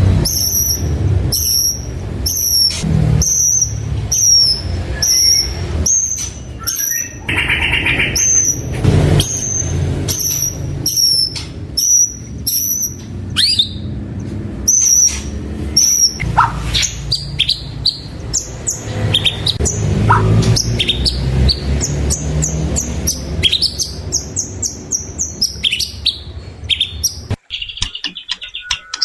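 White-rumped shama singing. It opens with a long run of short, sharp, high notes repeated about twice a second, then moves on to varied whistled phrases that rise and fall in pitch, over a steady low background rumble. The sound breaks off abruptly near the end.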